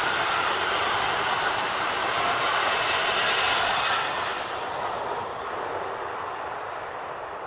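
Intermodal freight train wagons carrying road trailers and swap bodies rolling past on the rails with a steady rolling noise. The last wagon goes by about four seconds in, and the sound then fades as the train draws away.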